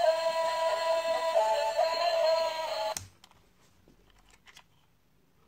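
A tinny electronic tune with synthesized singing, stepping between a few steady notes, cuts off abruptly about three seconds in; near silence follows, broken only by a few faint clicks.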